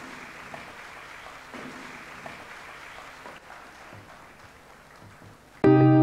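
Low, even hall noise with a few faint ticks, then loud background music of held notes cuts in suddenly near the end.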